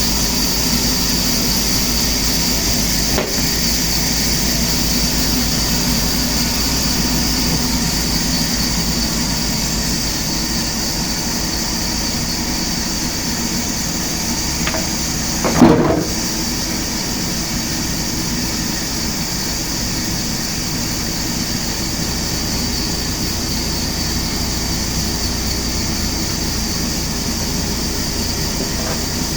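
Heavy machinery running steadily with a high hiss and a low hum, and one loud sudden clatter about halfway through.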